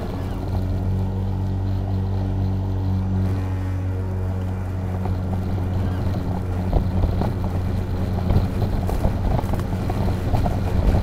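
EGO Power+ LM2135SP 56 V battery self-propelled lawn mower running while mowing grass: a steady electric motor-and-blade hum. From about six seconds in, irregular crackles and knocks join the hum.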